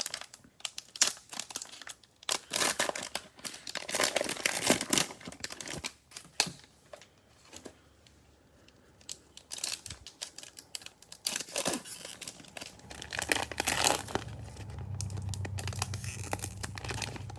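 Cellophane wrapper of a Mosaic football card cello pack being torn open and crinkled in irregular bursts. A low steady hum comes in near the end.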